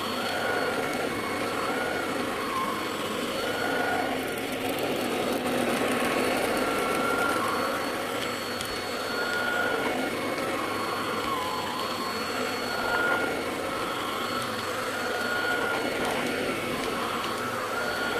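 Household vacuum cleaner running steadily while vacuuming the floor, its motor whine drifting up and down in pitch.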